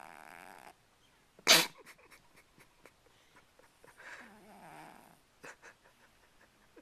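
Sleeping cat snoring: a raspy, fluttering snore that fades out just under a second in, and another about four seconds in that lasts about a second. About a second and a half in comes a sudden, short, loud burst, the loudest sound, followed by a few faint clicks.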